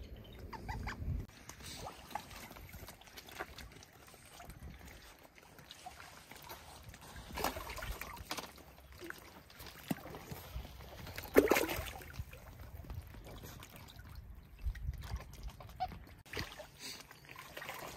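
Otters moving about in pool water: small splashes and water trickling, with scattered animal sounds and one louder sharp sound about eleven seconds in.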